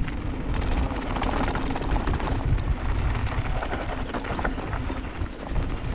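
Mountain bike descending a dry dirt trail at speed: knobby tyres rumbling over loose dirt and rocks, with the bike rattling through many short knocks over bumps and a heavy low rumble of wind on the microphone.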